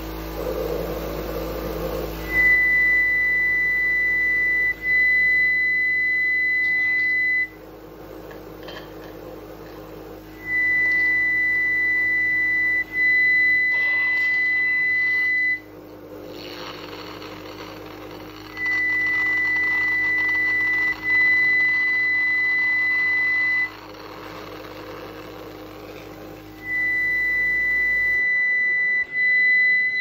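A cough assist machine cycling through its breaths: a loud steady high whistling tone about five seconds long, with a short break in the middle, comes four times at even spacing. Softer rushing air fills the pauses between.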